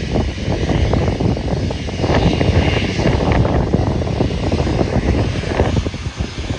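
Wide-body jet airliner's engines at departure thrust: a loud, continuous rough rumble with crackle.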